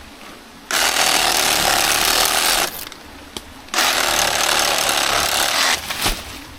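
Reciprocating saw with a 12-inch pruning blade cutting through a banana pseudo-stem, in two runs of about two seconds each with a short pause between.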